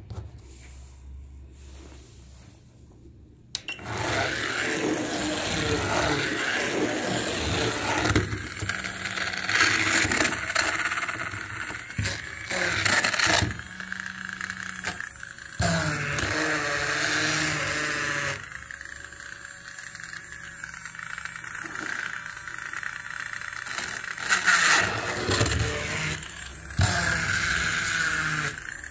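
Electric toy running: a loud, noisy whir and rattle that starts suddenly about three and a half seconds in, with shifting tones over it.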